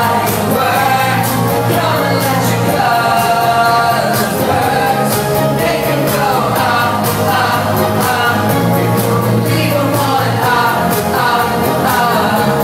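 Live pop music played loud: singing over a backing track with a steady drum beat.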